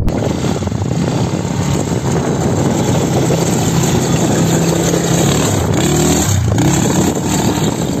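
Quad bike engine running and being revved, its pitch rising and falling about six seconds in.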